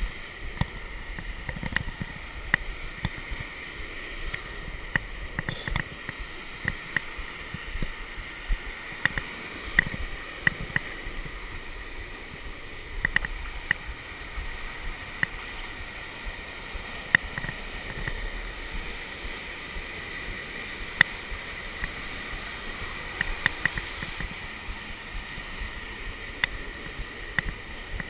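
Steady rush of river rapids and a small waterfall pouring between boulders, with frequent short, sharp clicks and knocks close to the microphone.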